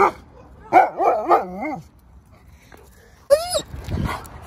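Alaskan malamute vocalising: a short call, then a long wavering 'woo' that bends up and down in pitch, then a brief higher yelp. This is the breed's excited 'talking' rather than barking.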